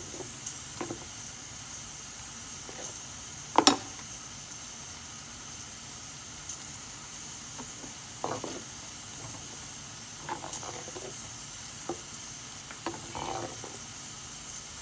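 A steel ladle stirring a thick yogurt curry in a clay pot, with scattered scrapes and knocks of the ladle against the pot. The loudest is a sharp knock a little under four seconds in. Under it runs a steady hiss. The curry is stirred without a break so that the yogurt does not split.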